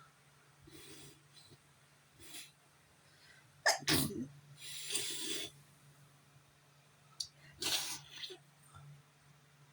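A person sneezing twice from allergies: a sharp, loud sneeze about four seconds in, followed by a hissing breath, and a second sneeze near the end, with quick inhales and sniffs around them.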